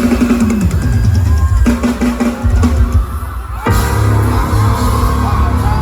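Live pop band music led by a drum kit, with bass and keyboard tones. The band thins out briefly about three seconds in, then comes back in full.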